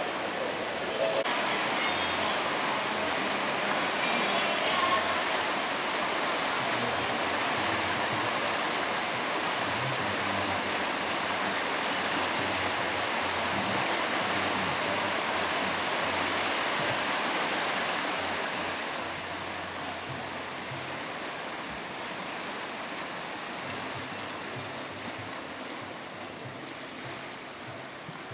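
Whitewater river rapids rushing steadily, a little quieter in the last third.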